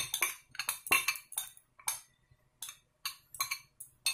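A metal spoon scraping and tapping against a glass bowl in an irregular run of short clinks and scrapes. It is scraping the last of the whisked curd-and-oil mixture out of the bowl.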